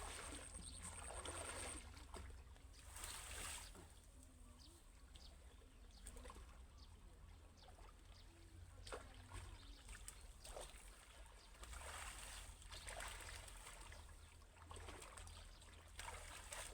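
Faint water trickling and splashing, with scattered short splashes.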